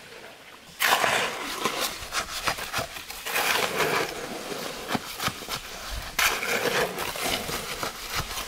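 A hoe and a shovel scraping and churning through a pile of concrete mix on the ground, a continuous gritty scraping made of many short irregular strokes. It starts abruptly about a second in.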